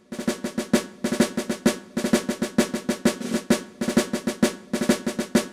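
Intro music: a quick snare-drum rhythm played in repeated groups of strikes over a held low chord.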